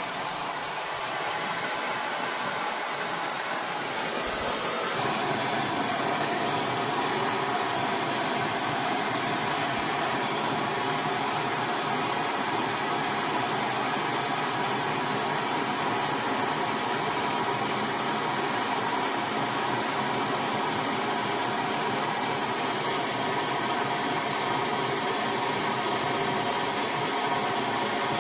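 Bernzomatic trigger-start propane blow torch burning with a steady hiss, heating a rusted, seized bolt on a catalytic converter exhaust pipe to free it. The flame noise grows louder about five seconds in, then holds steady.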